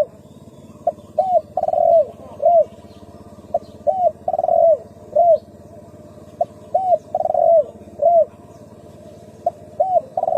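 Spotted dove cooing: a phrase of a short note, a coo, a longer drawn-out coo and a falling coo, repeated about four times at intervals of roughly three seconds.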